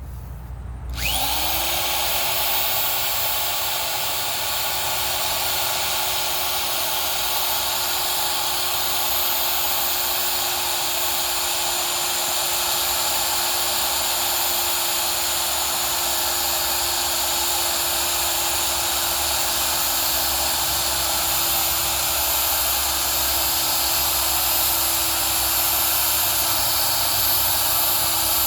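Powered ground-screw driving machine starting about a second in, its motor whine rising quickly and then holding a steady pitch in high gear as it drives a helical ground screw into the soil.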